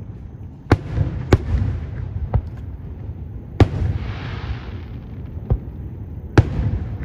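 Aerial fireworks shells bursting: about half a dozen sharp bangs at uneven intervals, with a low rumble between them. A hiss lasts about a second after the bang near the middle.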